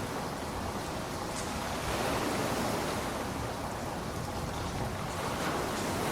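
Ocean surf washing onto a beach: a steady hiss of breaking waves that swells about two seconds in and again near the end.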